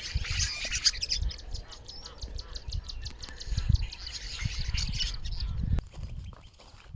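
Birds calling in an open field, with a fast run of evenly repeated chirps for a couple of seconds, over low rumble on the microphone; the calling drops away near the end.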